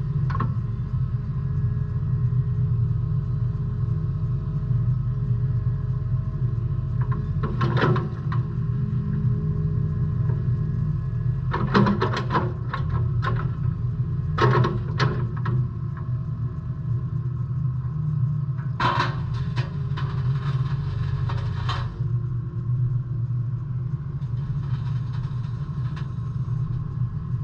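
JCB 8055 mini excavator's diesel engine running steadily. Several short bursts of metallic clanking and knocking come over it, about 8 seconds in, around 12 to 15 seconds, and again from about 19 to 22 seconds.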